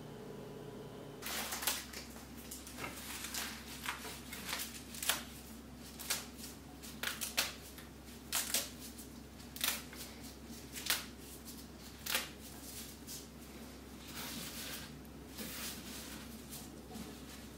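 Fresh coriander and parsley being picked apart by gloved hands over a wooden chopping board: irregular crisp rustles and snaps of leaves and stems, starting about a second in.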